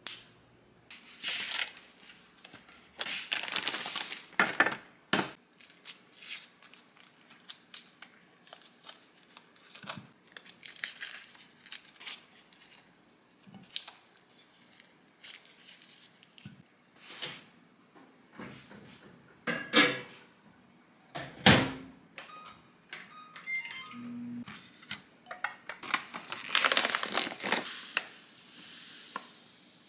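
Foil butter wrappers crinkling as pieces of frozen butter are unwrapped and dropped into a glass container, with a few sharp knocks of glassware. Near the end, granulated sugar pours with a hiss into a glass mixing bowl.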